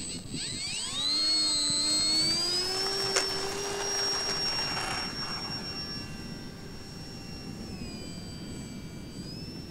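Electric RC plane's brushless outrunner motor and propeller (FMS T-28 Trojan, 3015 KV1700) spooling up to a rising whine for the takeoff run, then holding a steady high whine that fades as the plane climbs away. A single sharp click comes about three seconds in, and near the end the pitch dips briefly and rises again as the throttle is eased and reopened.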